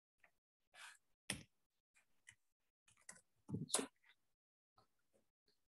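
Faint computer keyboard keystrokes typed at an irregular pace, single clicks with a quicker, louder run of strokes about three and a half seconds in.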